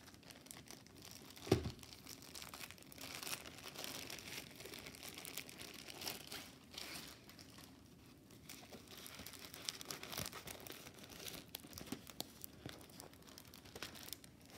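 Clear plastic sleeve and the canvas's plastic film crinkling faintly and unevenly as a rolled diamond painting canvas is slid out and unrolled. One sharp knock about a second and a half in.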